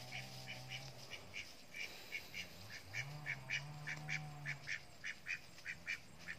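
Domestic ducks quacking in quick, short calls, several a second. Under them a low hum fades out about a second in and swells back, rising in pitch, about three seconds in.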